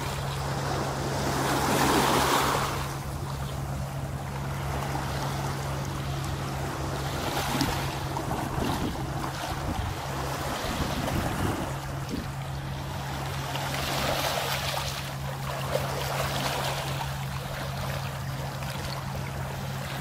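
Small sea waves washing in over a pebble shore, swelling and easing every few seconds, with a steady low hum underneath.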